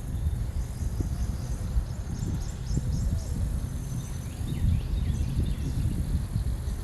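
Outdoor ambience: a steady low rumble, like wind on the microphone, with faint, short bird chirps scattered through it.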